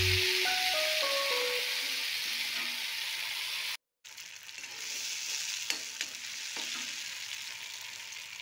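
Tomato paste sizzling as it fries in hot oil, a steady crackling hiss. It is stirred with a metal slotted spoon, which gives a few sharp clicks against the pan about six seconds in. The sound drops out for a moment about four seconds in, then the sizzling resumes.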